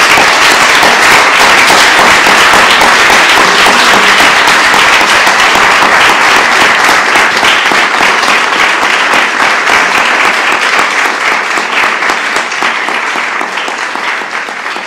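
Audience applauding: steady, loud clapping that slowly fades over the last few seconds.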